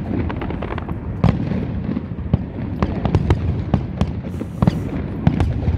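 Aerial fireworks display going off: an irregular string of sharp bangs and crackles, several a second, over a steady low rumble.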